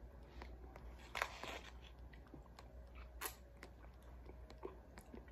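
Faint crinkling and rustling of an MRE foil pouch handled in the hands, with scattered crackles, the sharpest about a second in and about three seconds in.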